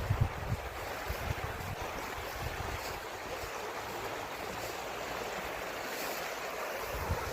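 Steady rushing of flowing river water, with low wind buffeting on the microphone near the start and again near the end.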